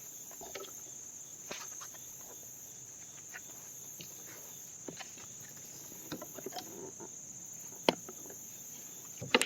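Steady high-pitched chorus of insects such as crickets, with a few sharp knocks scattered through it, the loudest one near the end.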